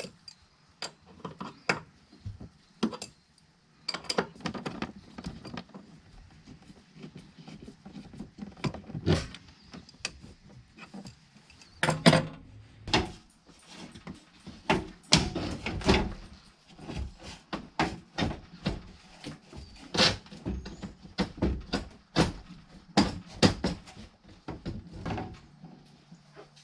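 Irregular knocks, clanks and rattles of hand tools and metal parts being handled, starting with an adjustable wrench working a steering cable nut.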